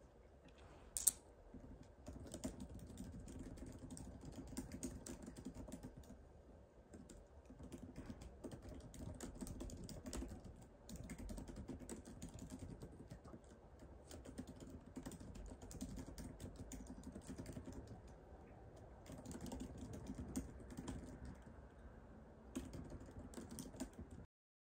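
Typing on a laptop keyboard: quick runs of key clicks in spurts with short pauses between them, starting about two seconds in, after one sharper click.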